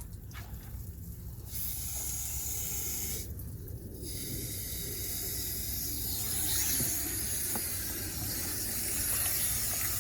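Water hissing from a garden hose spray nozzle as a puppy is sprayed down. There is a short spray about a second and a half in, a brief pause, then steady spraying from about four seconds on.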